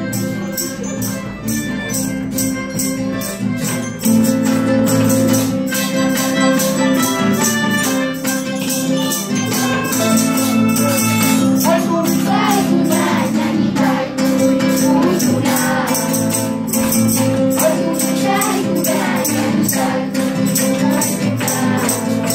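A school ensemble playing a tune together: many melodicas holding the melody over strummed acoustic guitars and an electronic keyboard, with no break in the playing.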